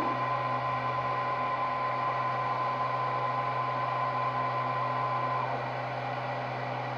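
A CNC milling machine running with a steady low hum and a high, even whine. The whine cuts off about five and a half seconds in, and the hum carries on.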